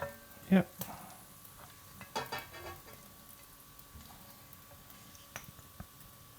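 Hot oil sizzling faintly in a frying pan after garlic has been fried crisp, with a few light clicks of a utensil.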